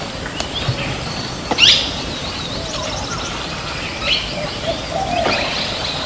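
Forest birds chirping: many short calls that rise and fall, over a steady background hiss, with one louder, quickly rising call about a second and a half in.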